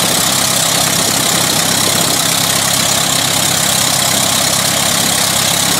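Van's RV-8 aircraft's piston engine running steadily on its first run, cowling off and propeller turning.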